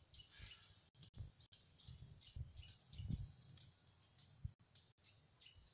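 Faint outdoor ambience: a steady high insect drone with scattered short bird chirps, and irregular low thumps, the strongest about three seconds in.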